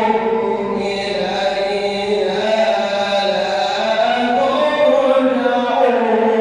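A man's voice reciting the Quran in melodic tajweed style. He holds long drawn-out notes that slide slowly in pitch.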